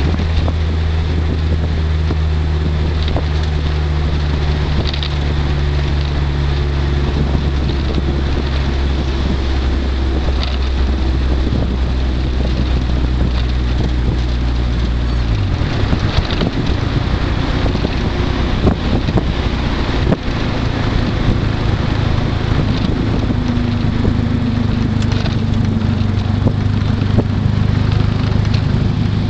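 1998 Mitsubishi Eclipse Spyder GST's turbocharged four-cylinder engine heard from inside the cabin while driving, a steady low drone with road and wind noise. Its pitch drops about halfway through, and the engine comes back in and climbs again later.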